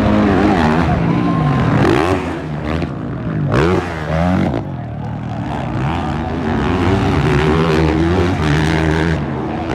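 Several motocross bike engines revving hard, their pitch climbing and dropping again and again as the bikes race by, with one bike sweeping past close about three and a half seconds in.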